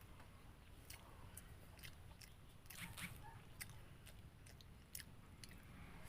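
Faint chewing and biting: a person eating, with scattered, irregular wet mouth clicks and small crunches.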